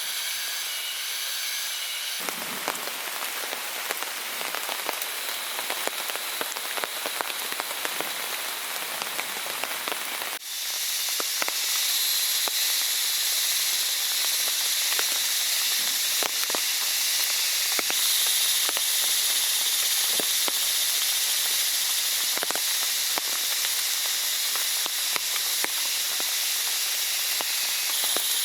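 Steady rain hissing, with many individual drops striking close by. The rain grows louder and hissier about ten seconds in.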